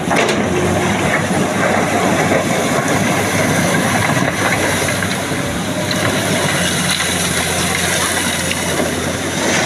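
An excavator's diesel engine running steadily.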